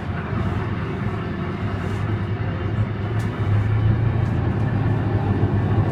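Steady low drone of propeller aircraft engines, growing gradually louder as the plane takes off, played through a show's loudspeakers.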